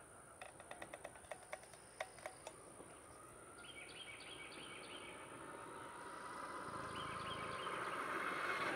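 A run of light clicks, then a vehicle approaching, its sound growing steadily louder over the last few seconds. Short high chirps come twice over it.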